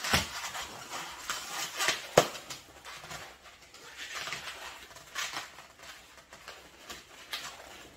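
Latex twisting balloons squeaking and rubbing as they are twisted and pressed together by hand, with scattered sharp squeaks and knocks, the loudest about two seconds in.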